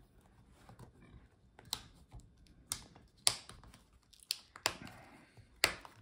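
Plastic front bezel of a laptop display being pried off the LCD panel, its retaining clips snapping loose in about five sharp clicks at irregular intervals.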